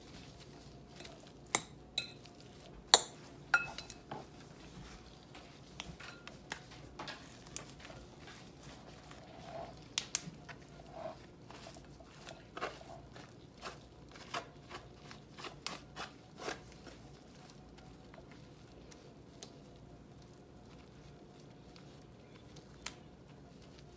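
Metal fork scraping strands of roasted spaghetti squash out of the skin and clinking against a glass bowl: irregular sharp clinks, the loudest few in the first four seconds, some with a brief glassy ring.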